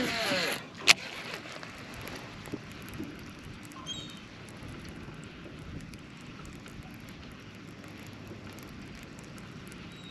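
Cast with a Shimano Curado K baitcasting reel: the spool whirs and falls in pitch as line pays out, then one sharp click just under a second in. After that, a steady low hiss of wind and water during the retrieve.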